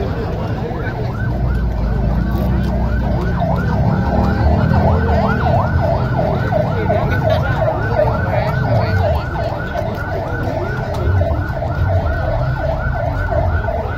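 Siren in a fast yelp, rising and falling about three times a second, over a low rumble.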